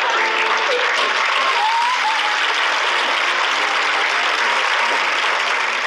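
Sitcom studio audience applauding and laughing after a punchline, as a dense, steady wash of clapping.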